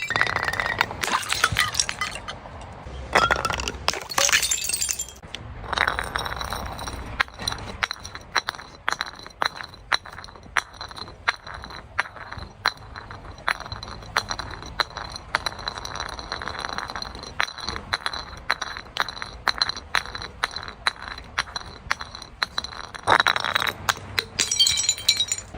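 Broken glass bottles being crushed: a dense run of crunching and clinking crackles of glass shards, with louder bursts of crunching at the start and near the end. A faint steady high-pitched tone runs underneath.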